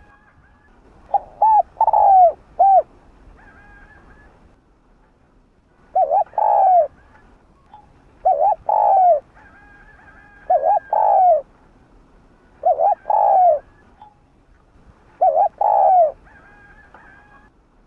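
Spotted dove cooing: six phrases about two seconds apart, each a couple of short coos running into a longer falling note.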